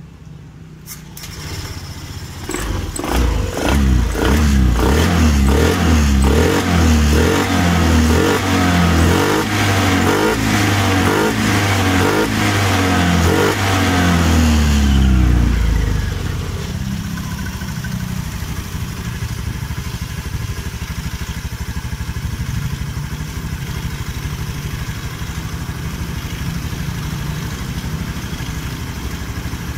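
Honda Vario 110 scooter's single-cylinder fuel-injected engine started on the electric starter about a second in, then revved up and down repeatedly. About halfway through it drops back and settles to a steady idle. This is a test run for a code 52 crankshaft position sensor fault, right after the sensor's connector was cleaned.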